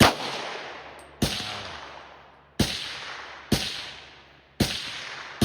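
Pistol fired in a steady string, about six shots roughly a second apart, each shot followed by a reverberant decay lasting about a second.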